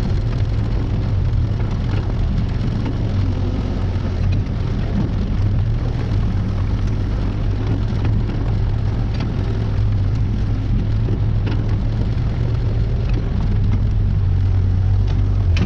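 Diesel engine of compact earth-moving equipment running steadily under load, with occasional light clanks from the machine working. The engine gets a little louder near the end.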